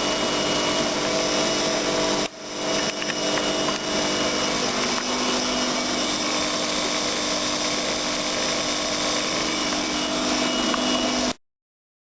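Studio WM26AAA washing machine running with freshly replaced drum bearings: a steady motor hum and whirr of the turning drum with a few held tones. It drops briefly a couple of seconds in, picks up again, and cuts off suddenly near the end.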